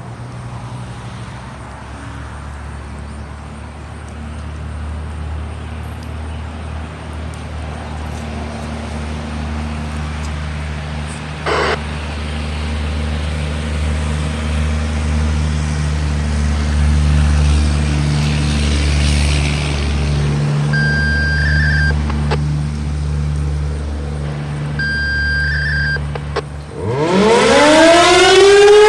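A low steady hum builds slowly, with a single knock partway through. Two short radio activation tones sound over a scanner, about four seconds apart, then near the end an American Signal Tempest 135 electromechanical outdoor warning siren starts up, its chopper spinning up and the pitch climbing steeply to become the loudest sound.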